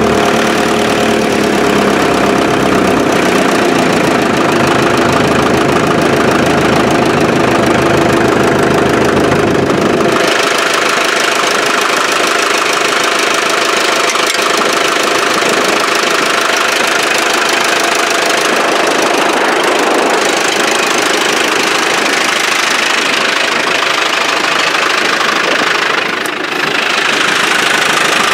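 1955 International TD6 crawler's four-cylinder diesel engine running steadily, first with a deep low rumble while the crawler moves. About ten seconds in the deep part drops away and the engine sounds thinner and higher, with a brief dip near the end.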